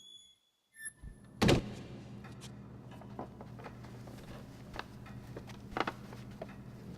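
A door shuts with a thunk about a second and a half in, followed by a steady low hum with scattered small clicks and knocks.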